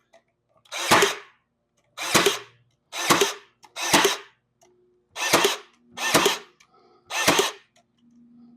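Ryobi cordless stapler firing seven staples into cedar fence-picket boards, one sharp bang roughly every second, in the bump-fire mode where a single trigger pull is held instead of pulled for each staple.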